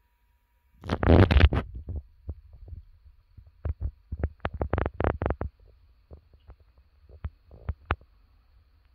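Handling noise on a phone's microphone: a loud rubbing rustle with a low rumble about a second in, then a run of short knocks and scrapes and a few scattered ticks.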